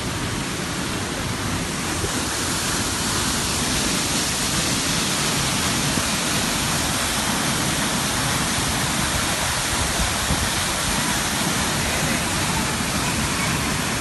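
Steady rush of a waterfall, water pouring down a rock face into a rocky pool. The rush grows a little louder about two seconds in.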